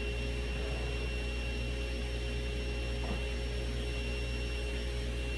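Table saw running with no load, its motor and blade spinning at a steady hum before the board is fed in.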